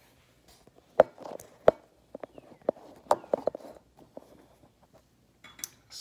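Handling noise and footsteps as a phone camera is carried and set down on a granite countertop: two sharp knocks in the first two seconds, then scattered light taps and clicks.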